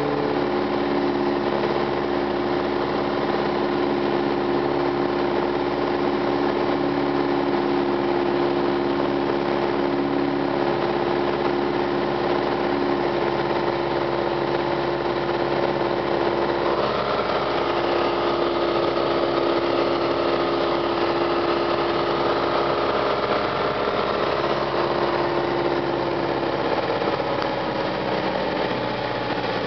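Piper Cherokee 140's four-cylinder Lycoming engine and propeller running steadily in flight, heard from inside the cockpit as a constant drone. A higher whine joins about halfway through and fades out a few seconds before the end, where the level dips slightly.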